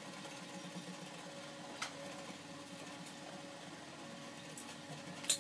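Steady low workshop hum with two sharp metallic clicks from tools or parts handled in a car's engine bay, the second, near the end, the louder.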